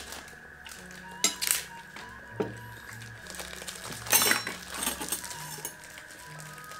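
Spoons and forks clinking against plates and bowls during a meal: a sharp clink a little over a second in, and a louder cluster of clinks and scrapes near the middle. Soft background music plays underneath.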